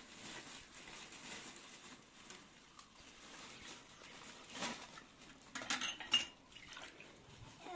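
Small glass tea cups being rinsed and rubbed by hand over a metal tray, with faint water sounds and glass clinking. A few clinks come in the second half, the sharpest about six seconds in, ringing briefly.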